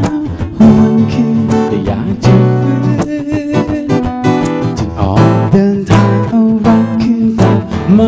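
Acoustic guitar strummed in a steady rhythm, with a man singing over it.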